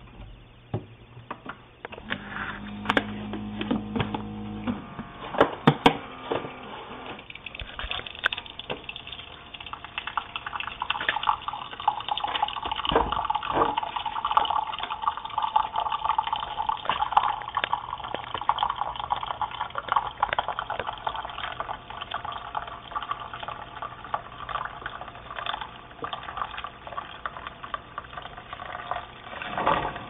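Keurig K-Cup brewer running a brew cycle: a low machine hum with a few clicks in the first few seconds, then coffee streaming and gurgling into a ceramic mug for about twenty seconds, loudest in the middle, with a brief louder burst near the end as the brew finishes.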